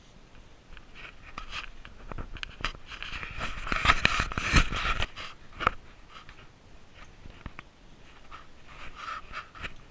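Heavy panting breath of a climber on a ladder, with knocks and scrapes of hands and boots on the rungs and rock; a louder stretch of scraping and rustling about three to five seconds in.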